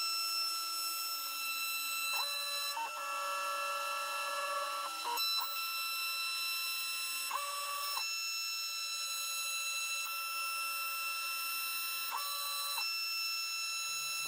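CNC router running a quarter-inch end mill through walnut, a steady high-pitched whine of the router motor as it routs grooves. Three times, about five seconds apart, an added tone steps up for about half a second and drops back as the machine moves.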